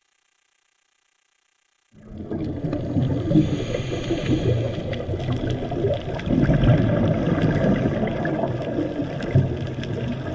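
Underwater water noise picked up by a diving camera: a dull, rumbling rush with scattered faint clicks. It starts suddenly about two seconds in, after silence.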